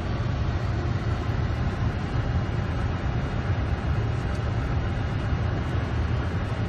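Steady low rumble of airflow and engine noise in the flight deck of a Boeing 747-400 on final approach.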